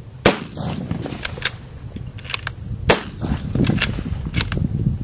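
Rifle firing two shots about two and a half seconds apart, with lighter clicks between the shots.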